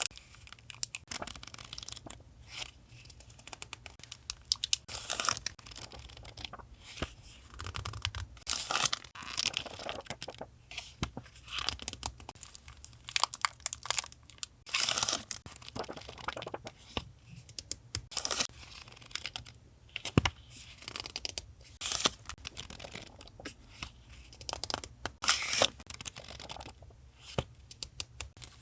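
Paper and packaging handled close to the microphone: irregular rustling, crinkling and tearing in short bursts with brief pauses between.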